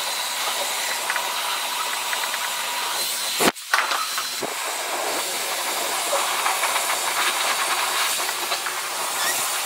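Handheld hair dryer blowing steadily with a thin high whine, drying a bathed Ragdoll cat's damp fur; it breaks off for a moment about three and a half seconds in.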